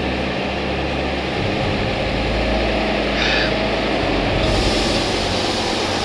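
Unimog expedition truck's engine running steadily under load as it drives through a shallow rocky creek crossing, with a constant noisy wash over the engine note.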